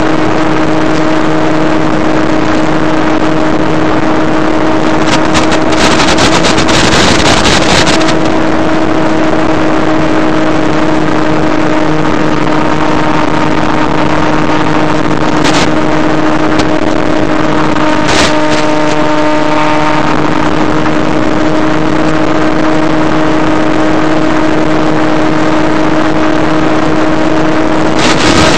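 Steady drone of a Skywalker FPV plane's electric motor and propeller at constant throttle, heard through the analogue video link's audio with a hiss under it. Bursts of radio static break in, the longest about five to eight seconds in and another near the end, as the video signal breaks up.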